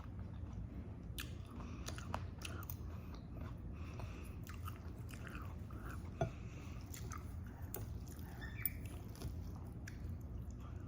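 A person chewing food close to the microphone, with soft crunches and small mouth clicks scattered through, over a low steady hum; one sharper click about six seconds in.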